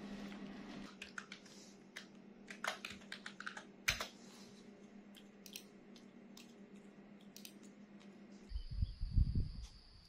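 Computer keyboard being typed on, irregular key clicks over a steady low hum. About eight and a half seconds in, the sound changes to a low rumble, the loudest part, and a steady high buzz of insects.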